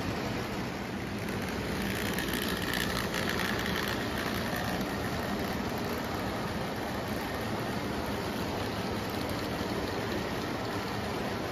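Lionel O gauge freight train running past on three-rail track: a steady rumble of boxcar wheels rolling over the rails and the locomotive's motor hum. A faint higher tone rises over it for a second or two about two seconds in.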